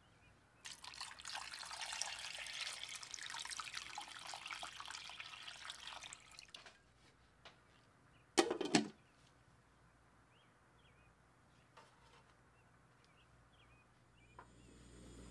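Water poured from a jug into a stainless steel pot over peeled potatoes for about six seconds, then a glass lid set onto the pot with a brief clatter about eight seconds in. A low steady rumble starts near the end as the pot heats.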